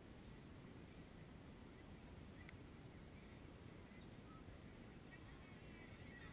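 Near silence: faint open-air field ambience, a low steady rumble, with a faint click about two and a half seconds in and faint distant calls near the end.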